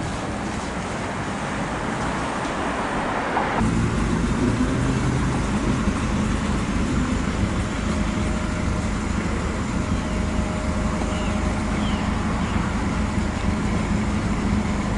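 City street traffic noise, changing abruptly about three and a half seconds in to a car engine running close by with a steady low hum.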